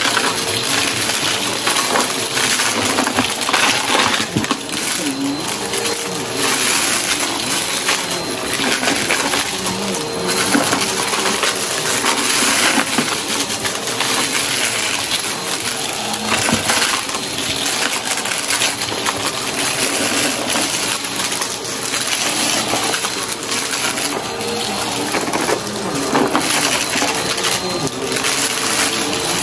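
Vacuum cleaner running over shag rugs, sucking up glitter, sequins and small hard debris that crackle and rattle through it in quick, uneven clicks over the steady rush of the suction and a faint motor whine.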